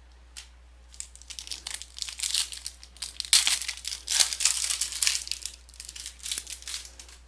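Foil wrapper of a trading-card pack crinkling and tearing as it is opened by hand: a run of crackly rustles, loudest about halfway through.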